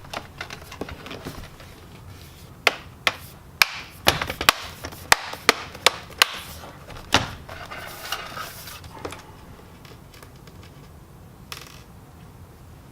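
Small screws and a screwdriver clicking and tapping against a laptop's plastic back panel as the screws are set in place: irregular sharp clicks, about a dozen of them bunched together a few seconds in, with lighter ticks around them.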